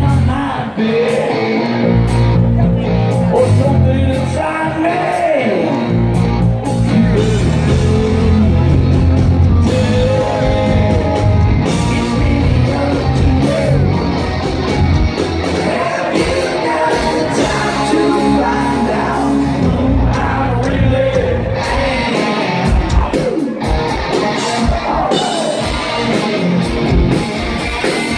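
Live rock band playing loudly, with the lead singer singing and shouting into his microphone, heard from the crowd in a concert hall.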